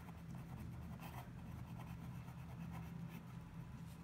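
Reynolds Trimax pen scratching on paper as a word is written out by hand in short strokes, over a low steady hum.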